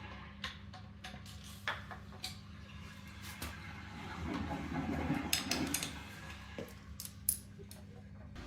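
Scattered light clicks and clinks of small household objects being handled, busiest just past the middle with one sharper click near the end, over a low steady hum.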